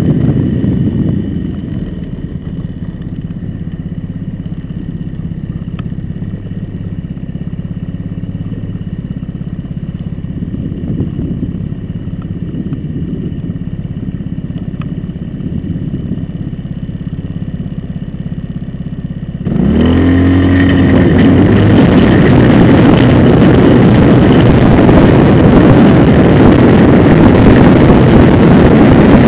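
Motorcycle engine running steadily at low road speed. About two-thirds of the way through, the engine revs up as the bike accelerates, and loud wind rush on the microphone takes over.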